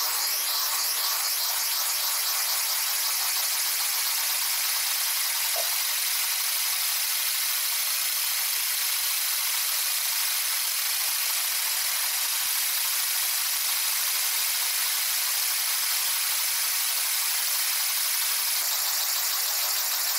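A 3D-printed nutating-disk (wobbling-disk) air engine runs fast on compressed air and spins a propeller, making a steady high-pitched whir. The sound shifts slightly near the end.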